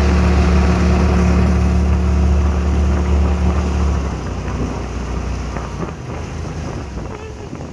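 Boat engine running under way, a loud steady low drone that changes to a rougher, less even sound about four seconds in.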